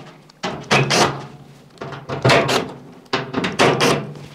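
Cordless drill/driver running in several short bursts as it undoes the screws holding a tumble dryer's rear drum panel.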